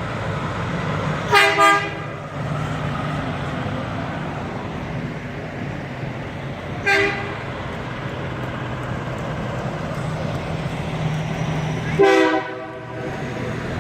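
Semi-truck air horns honking: two quick blasts about a second and a half in, a short one about seven seconds in and a longer blast near the end, over the steady drone of the haulers' diesel engines.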